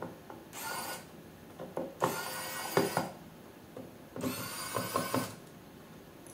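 Electric precision screwdriver whirring in three short runs of about a second each, backing out the small screws that hold a tilter plate.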